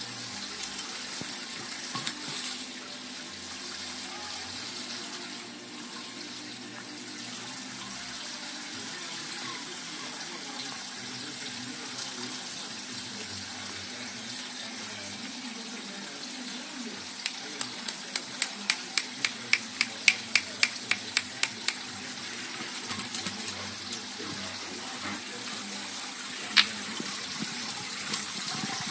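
Garden pond fountain splashing steadily into the water. A little past halfway there is a quick run of sharp ticks, about three a second, and a few more follow near the end.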